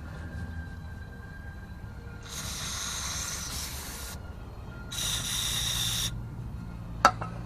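Two bursts of pressurized spray hissing, the first about two seconds long and the second about one, followed by a single sharp click near the end.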